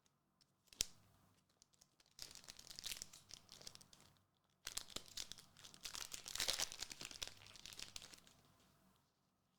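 Foil booster pack wrapper being torn open and crinkled by hand, with a sharp click about a second in and two bouts of crackling, the second louder.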